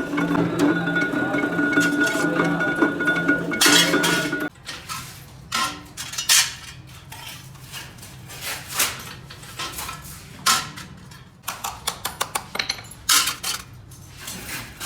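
A machine hums steadily with a fixed high tone and cuts off suddenly about four and a half seconds in. Then come irregular metallic clinks and taps of stainless steel stove parts being handled and knocked together, growing quicker near the end.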